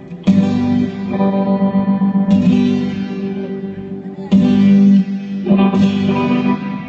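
Guitar chords strummed one at a time for a sound check, four strums about two seconds apart, each left to ring and fade with reverberation through the hall's PA.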